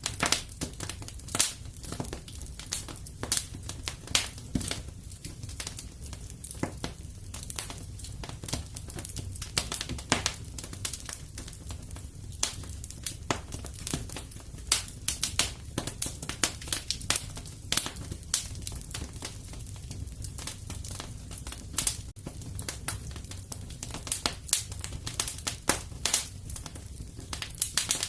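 Wood fire in a fireplace crackling, with frequent sharp pops over a steady low rumble.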